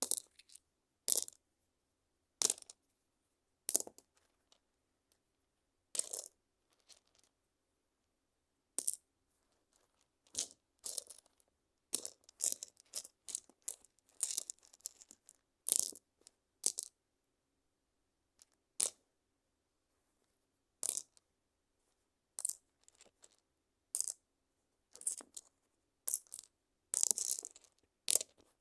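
Small stones clacking against each other in sharp, irregular clicks. The clicks come singly with gaps of a second or two, and in places bunch into quick rattling clusters.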